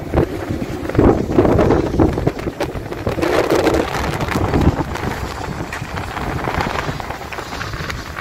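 Wind buffeting the microphone on a sailing yacht under way in choppy water, a loud rumbling rush. Heavy gusts in the first few seconds, then a steadier, slightly quieter rush.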